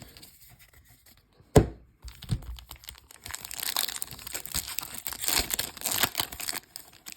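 A single sharp tap about one and a half seconds in, then the foil wrapper of a Pokémon trading card booster pack crinkling and tearing as it is opened for a few seconds.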